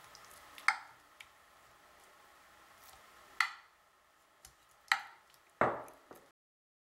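Metal spoon clinking against a ceramic baking dish while spreading chile sauce over pork loin: about four sharp clinks with a few lighter taps between them. The sound cuts out suddenly near the end.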